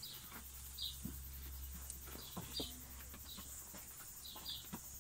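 A small bird chirping: short high chirps, mostly in pairs, about once a second. Under it are soft clicks and rustles from puppies eating and nosing about, over a faint steady low hum.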